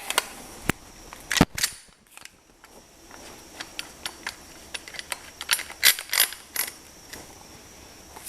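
Metal clicks and knocks of a Mossberg 500 pump shotgun's parts being handled as its barrel is fitted into the receiver: a few sharp knocks in the first couple of seconds, then many lighter mechanical clicks.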